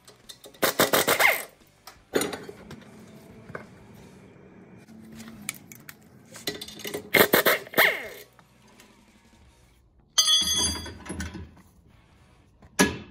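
Power tool, likely an impact wrench, run in several bursts of about a second, hammering rapidly with a falling pitch as it spins the nuts off the leaf-spring U-bolts and lower plate.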